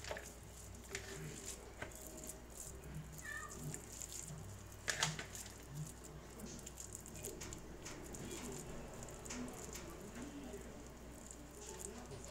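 Faint kitchen handling sounds: scattered small clicks and taps of hands working with food, with one louder click about five seconds in.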